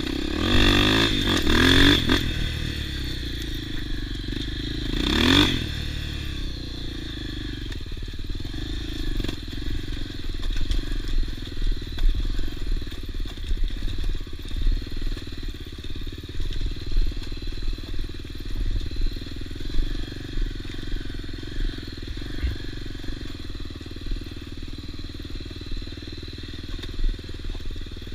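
Off-road motorcycle engine revving up twice, about a second in and again near five seconds, then running on steadily at lower revs with an uneven, lumpy note.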